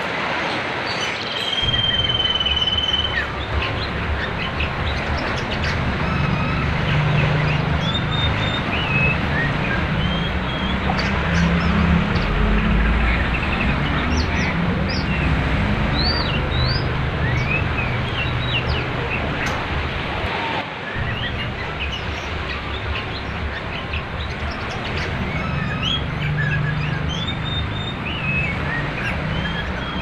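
Songbirds singing a varied run of short whistles and chirps over the steady rush of a river.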